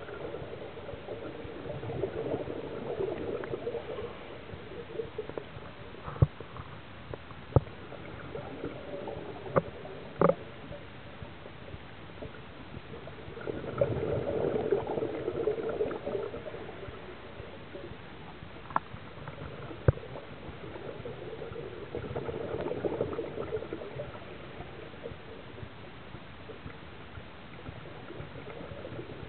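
A scuba diver's exhaled bubbles rumbling out of the regulator, heard underwater in three long swells about ten seconds apart. A few sharp clicks fall in between, over a steady background hiss.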